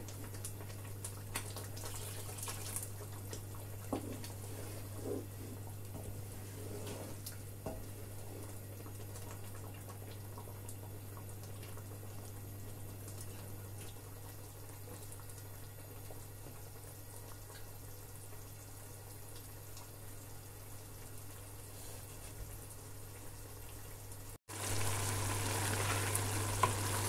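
Ground egusi (melon seed) cooking in stock in a pot, stirred with a wooden spoon: soft liquid bubbling with a few scrapes and knocks of the spoon, over a steady low hum. After a cut near the end the simmering is louder and more sizzling.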